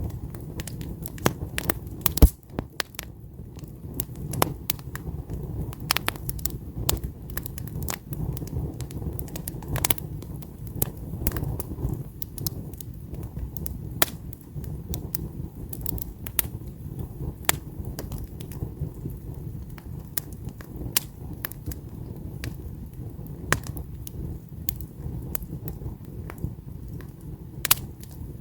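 Wood campfire crackling and popping: irregular sharp snaps of burning logs over a low steady rumble, with one louder pop about two seconds in.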